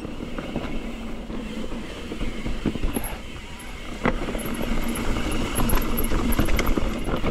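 Santa Cruz Bronson mountain bike descending fast on a dirt trail: tyres rumbling over the ground, with frequent knocks and rattles as the bike hits bumps and roots.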